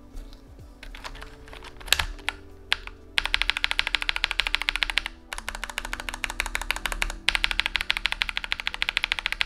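A long-pole tactile mechanical keyboard switch under a keycap, pressed a few times singly, then tapped in three rapid runs of keystrokes, each a couple of seconds long. Soft background music plays underneath.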